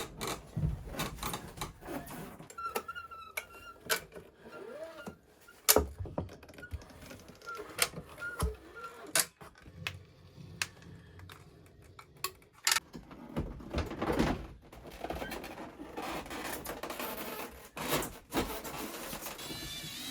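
Irregular clicks, taps and knocks at an uneven pace, a few of them sharp, with a denser rustling stretch after the midpoint.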